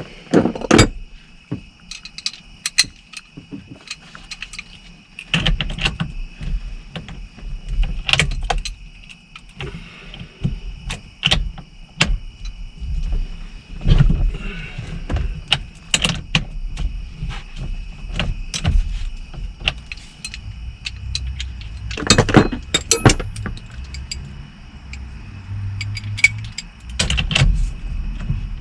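Hand tools at work on a steering wheel's centre nut: a socket wrench and metal tools clinking and clicking irregularly, with knocks and handling rumble from inside the car.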